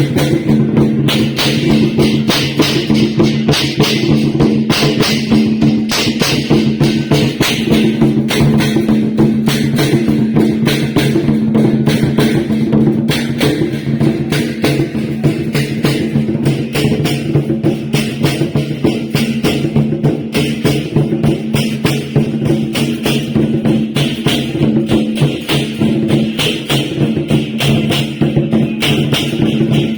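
Loud festival music: rapid drum and percussion strokes over a steady low drone, running continuously.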